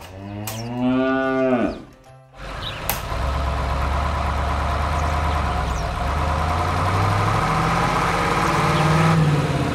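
A cow moos once in a long call that falls away at the end. Then, about two and a half seconds in, a tractor engine sound effect starts and runs steadily, its pitch rising a little near the end.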